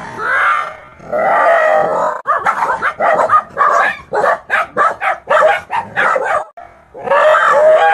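A dog vocalising: a drawn-out growling call, then a quick run of short barking calls, about three a second, then another long call near the end.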